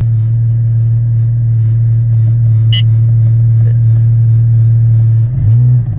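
Porsche GT4's flat-six idling through a Dundon Motorsports Cracked Pretzel Inconel exhaust, a steady deep drone heard from inside the cabin. Near the end the revs rise briefly and drop back.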